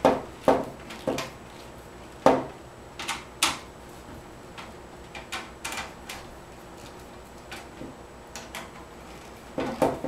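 Screwdriver tightening the mounting screws of a 120 mm case fan on a PC case's front panel: irregular clicks and clunks of the tool and screws against the case, the sharpest right at the start and about two seconds in.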